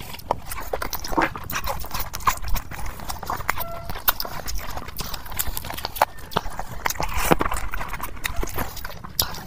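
Close-miked mukbang eating sounds: chewing and lip smacking as a man eats a curried chicken drumstick and handfuls of fried rice. It comes as an uneven run of sharp mouth clicks and smacks, several a second.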